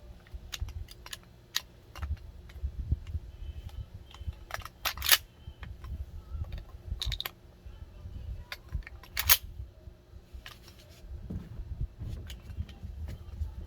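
Scattered clicks and knocks over a low handling rumble, with two sharper cracks standing out about five and nine seconds in.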